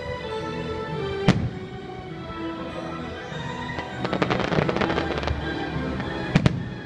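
Aerial fireworks bursting over loud show music. There is a sharp bang about a second in, a spell of dense crackling about four seconds in, and two sharp bangs close together near the end.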